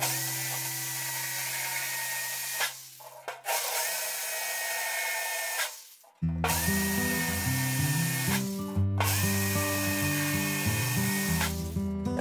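Power drill with a step drill bit boring through a thin metal plate, run four times for about two and a half seconds each: the motor whine rises quickly and then holds steady over the grinding of the cut.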